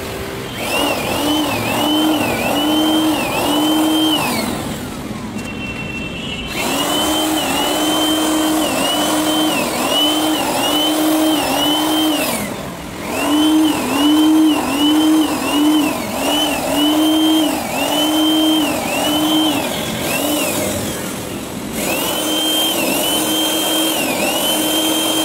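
Hand-held electric hammer drill boring upward into a concrete ceiling slab, its motor whine sagging under load and recovering about every two-thirds of a second. The motor stops and winds down about 4 s in and again about 20 s in, then starts up again.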